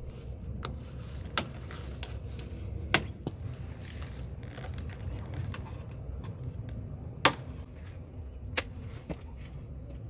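Plastic push-in clips of a new door weatherstrip snapping into their holes in a truck door: about six sharp clicks at irregular intervals, the loudest around three and seven seconds in, over a steady low rumble.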